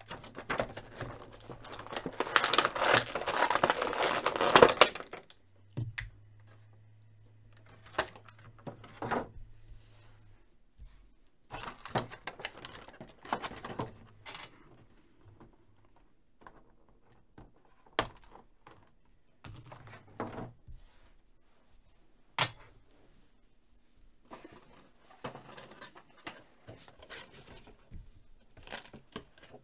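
Clear plastic blister tray crinkling loudly for a few seconds as an action figure is worked free of it, then scattered clicks and taps of plastic parts being handled and set down on a table.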